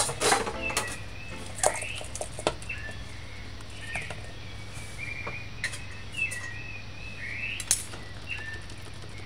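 Small birds chirping in short, repeated calls that slide up or down in pitch, over a steady low hum. A few sharp clicks and knocks cut in, the loudest right at the start and at about a second and a half in.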